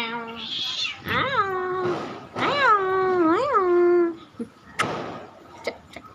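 Domestic cat giving two long, drawn-out meows, each sliding in pitch, the second wavering near its end.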